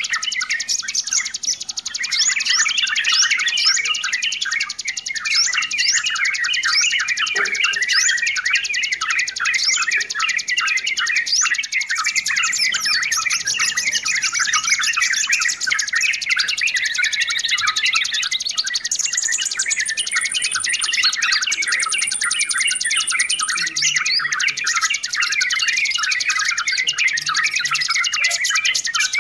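Yellow-vented bulbuls (trucukan) calling and chattering nonstop in a noisy, dense chorus of short, rapid chirps. A couple of high, thin whistles stand out about two-thirds of the way through.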